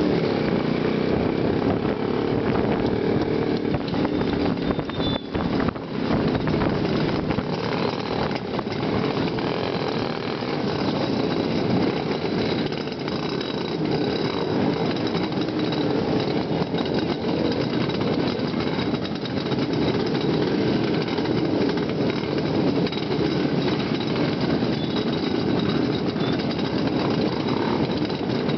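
Many Jawa and Yezdi two-stroke motorcycle engines running together in a tightly packed group, a steady, dense engine noise heard from one of the bikes.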